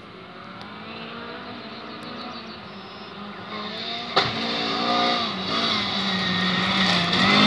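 Supercross race car engines approaching on the dirt track, revving with the pitch rising and dipping through gear changes and growing steadily louder. A single sharp bang a little after four seconds in.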